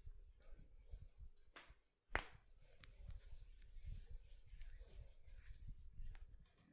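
Quiet massage sounds of hands rubbing and pressing on skin, with a single sharp click about two seconds in and a fainter one just before it.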